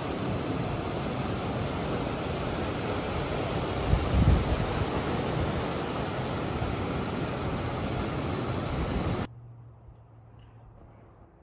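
Steady rushing outdoor noise with wind gusts buffeting the microphone, strongest about four seconds in. It cuts off abruptly about nine seconds in, leaving a faint low hum.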